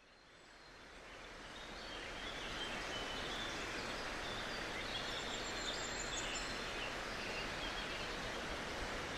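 Outdoor ambience fading in over the first two seconds: a steady wash of noise with faint bird chirps over it.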